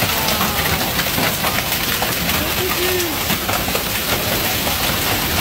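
Heavy rain mixed with hail pelting down on pavement, grass and a car: a dense, steady hiss peppered with many small sharp hailstone impacts.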